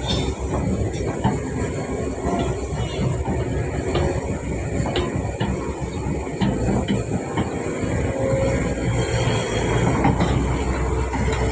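Excavator's diesel engine running steadily under load, with scattered metallic clanks and a few brief squeaks from the working machine.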